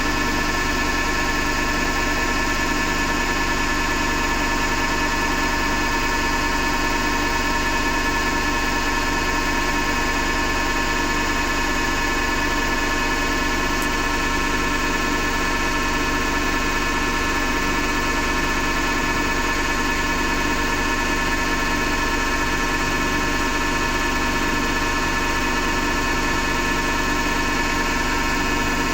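Hotpoint Ariston FMD963 washing machine running with a steady grinding noise and a whine at an unchanging pitch, which the owner suspects comes from the motor rather than the drum.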